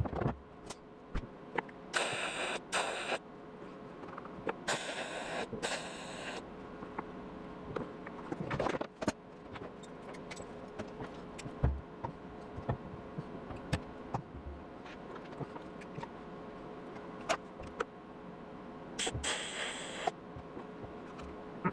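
Tack welds on a car's sheet-metal quarter panel: three bursts of welding about a second or two long, around two, five and nineteen seconds in, with small clicks and a steady hum between.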